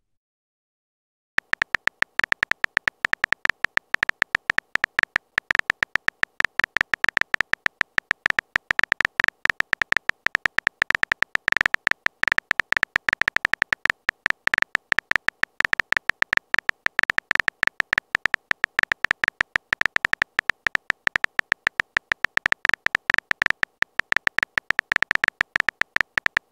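Phone keyboard typing sound effect: a rapid, unbroken run of short, high clicks as a message is typed. It starts about a second and a half in.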